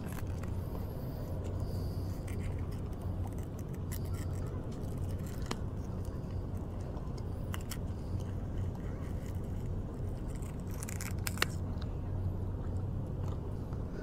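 Pliers and a metal hook remover clicking and scraping as a swallowed hook is worked out of a small fish's mouth, the sharpest click about eleven seconds in. A steady low hum runs underneath.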